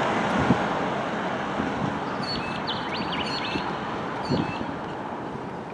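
A car passing close by on the road and fading away as it goes, with a bird chirping a few times in the middle.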